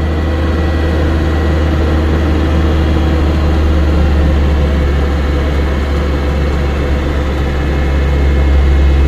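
Off-road vehicle's engine running steadily under way, a loud low drone heard close to its bonnet, growing a little louder near the end.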